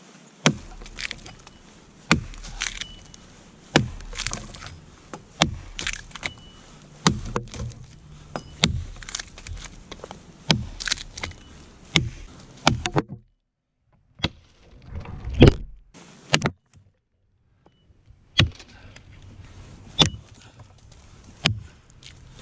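Steel axe chopping into a fallen log, with repeated sharp blows as the bit bites into the wood and knocks out chips. The blows come about once or twice a second, then after a short break just past halfway they come more slowly, a second or more apart.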